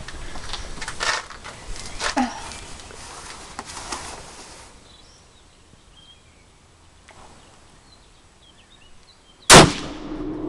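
A Mosin-Nagant 91/30 rifle fires a single very loud 7.62x54R shot about nine and a half seconds in, with a short ringing tail. Before it come a few sharper knocks, then a quiet lull with faint bird chirps.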